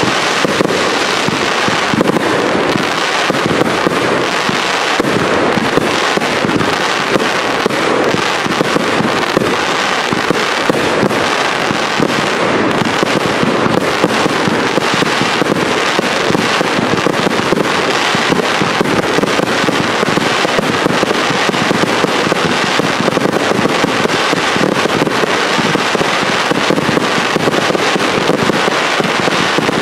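Cake fireworks (compound multi-shot batteries) firing in a dense, continuous barrage: rapid, overlapping shots and bursts with no pauses.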